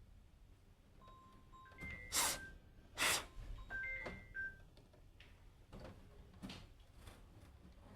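Short electronic beeps at a few different pitches, one after another, with two brief loud hissing bursts about two and three seconds in.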